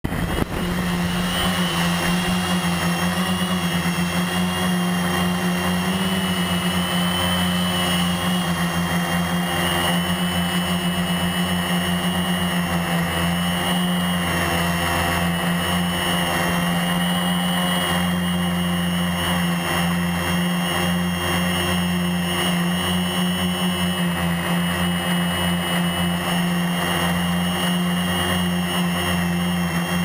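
Electric motors and propellers of a Rotor Concept HPQ1 quadcopter, heard close up from its own onboard camera: a steady buzzing hum with a higher whine above it, wavering slightly with throttle.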